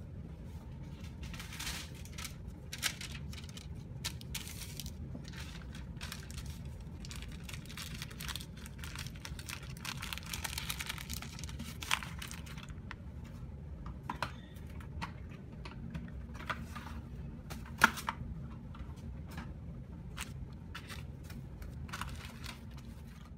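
Cling film and kitchen paper rustling and crinkling as a fish fillet is handled and wrapped by hand, with scattered sharp taps, the loudest about eighteen seconds in, over a steady low hum.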